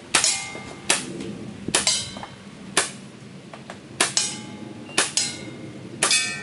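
A string of about eight pistol shots at steel plate targets, spaced roughly a second apart, with a short metallic ring from a plate after several of them as the hits land.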